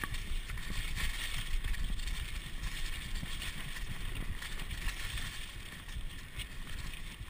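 Mountain bike rolling along a trail of dry fallen leaves: a steady noise of the tyres crunching over the leaves, with low wind rumble on the chest-mounted camera's microphone.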